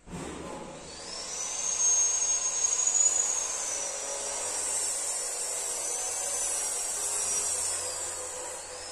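A high-speed electric motor starts suddenly and runs with a high whine that rises about a second in and then wavers, over a steady hiss.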